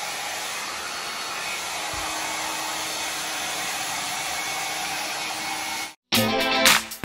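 Handheld hair dryer running steadily as it blows a dog's coat dry. It cuts off suddenly about six seconds in, and music with a plucked guitar starts right after.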